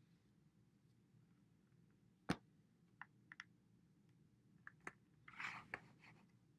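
Plastic dry-erase markers and their caps being handled: one sharp click about two seconds in, then a scatter of lighter clicks and a short rustle near the end, over faint room tone.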